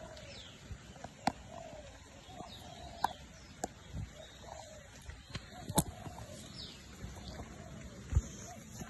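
Sharp knocks and bumps on a phone's own microphone as a long-tailed macaque handles the phone, several over a few seconds with the loudest near the end. Birds call repeatedly in the forest around it, short falling chirps.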